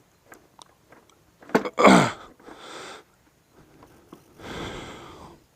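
A man's loud breathy exhales and, about two seconds in, a short groan of effort that falls in pitch, with scattered small clicks, while he works a stuck motorcycle rear wheel free.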